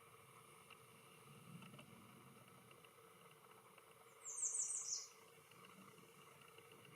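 A small bird gives a quick run of about five high, down-slurred chirps about four seconds in, over a faint low rumble.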